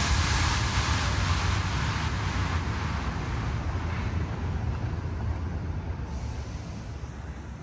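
Steady rumbling city-street background noise with no tune or voice, fading out slowly.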